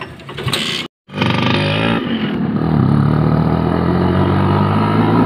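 Noise for about a second, a brief dropout, then a vehicle engine picking up speed: its pitch rises for about a second, then it runs steadily as the vehicle moves along.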